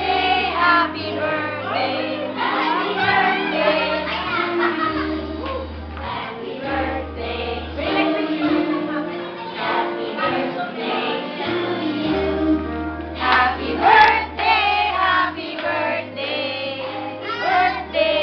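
A group of voices singing a birthday song together over recorded music with a steady bass line.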